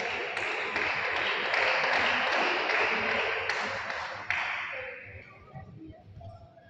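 Spectators applauding, a dense clatter of clapping that dies away about four to five seconds in.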